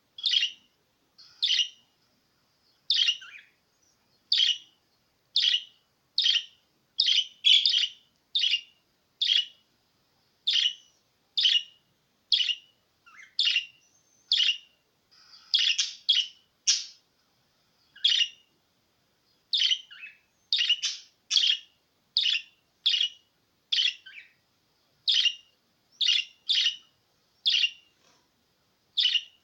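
Budgerigar giving short, high chirping calls one after another, about one a second with brief silences between, a few coming in quick pairs near the middle.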